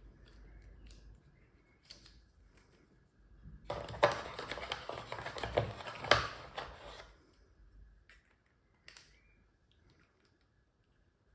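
Close handling noise from opening the packaging: about three seconds of crinkling and clicking starting a little under four seconds in, with two sharp snaps, then a few scattered small clicks.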